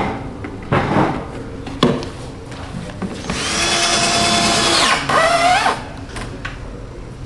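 Power drill-driver driving a screw into the wardrobe's top panel: the motor runs steadily for nearly two seconds, then a shorter run rising in pitch. A couple of sharp knocks come before it.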